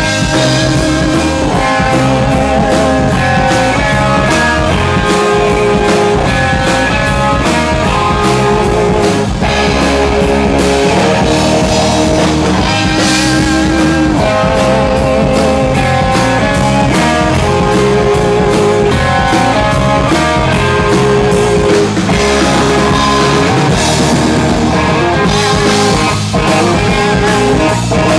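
Rock band playing live: a guitar lead with held, wavering notes over bass and a steady drum-kit beat.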